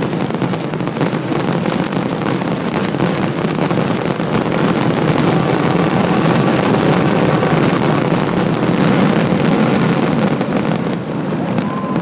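A dense, unbroken barrage of fireworks, with bursts and rapid crackling packed closely together, easing slightly near the end. The crowd cheers right after it, which points to the show's finale.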